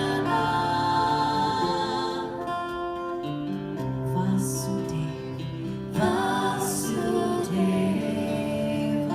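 Live devotional chant music: held chords with a singing voice over them. Two short hissy sounds come about four and a half and six and a half seconds in.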